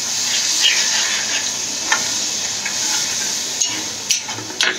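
Spice masala sizzling in a hot pan as a splash of water is poured in and it is stirred with a steel spoon, which scrapes and clinks against the pan a few times, mostly near the end. Water is being cooked off the masala so that it fries down.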